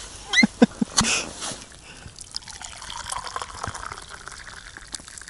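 Liquid poured from a steel vacuum flask into a metal cup, trickling steadily for a few seconds. Before the pour come a few short squeaks and clicks as the flask's stopper is opened.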